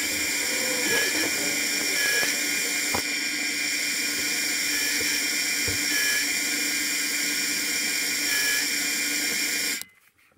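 Chinese mini lathe running steadily, its motor whining with a hiss, as the cutting tool chamfers the front edge of the spinning workpiece. A few faint short squeals come from the cut. The sound cuts off suddenly near the end.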